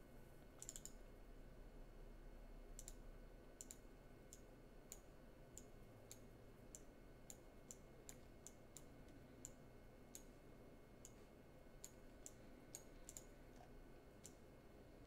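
Faint computer mouse clicks at irregular intervals, a couple of dozen of them, over quiet room tone.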